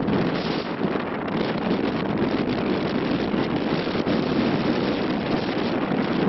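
Steady rush of wind buffeting the microphone aboard a moving catamaran, over the even noise of the boat running through the water.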